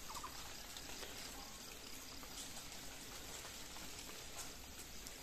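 Faint, even outdoor background hiss with a few soft ticks.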